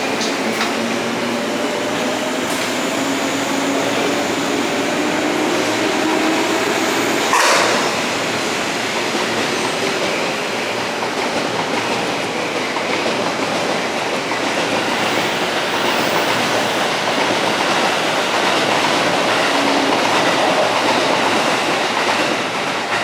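Electric train running, its motor hum rising in pitch as it gathers speed over the first several seconds, with one sharp clack about seven seconds in, then steady running noise with wheel and rail clatter.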